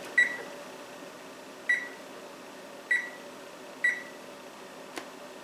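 Oven control panel beeping as its keypad is pressed to set the baking timer: four short, identical high beeps at uneven intervals about a second apart, with a faint click near the end.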